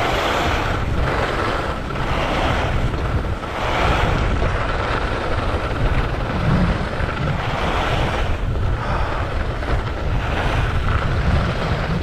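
Wind buffeting an action camera's microphone while skiing downhill: a heavy low rumble, with swells of snow hiss that come and go every second or two as the skis turn.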